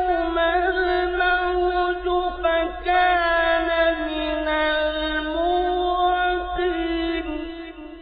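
A man's voice reciting the Quran in the melodic mujawwad style, holding a long ornamented note that bends and slides in pitch, then fading away near the end.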